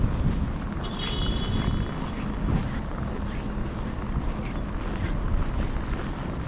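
Wind buffeting the microphone with a low rumble of street traffic during a snowstorm, and a brief high-pitched squeal about a second in.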